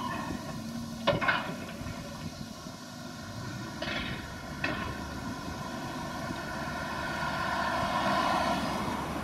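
Volvo demolition excavators' diesel engines running under load, with a steady hydraulic whine. A demolition attachment tears at a hall's roof edge, with sharp crashes of metal and debris about a second in and again around four seconds in. The machine noise swells near the end.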